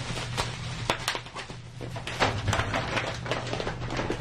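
Plastic parts bags and bubble wrap crinkling and rustling as they are handled and lifted out of a cardboard box, with irregular light clicks and taps, over a faint steady low hum.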